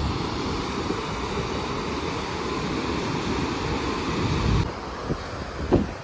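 Water rushing out of an open dam spillway gate and falling into the river below, a steady, dense rush. About four and a half seconds in it cuts off, leaving quieter wind noise on the microphone with a couple of brief knocks.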